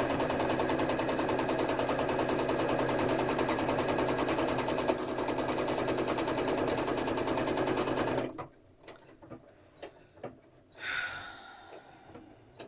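Sewing machine stitching at a steady fast rate, stopping abruptly about 8 seconds in. Small handling clicks follow, with a sigh near the end.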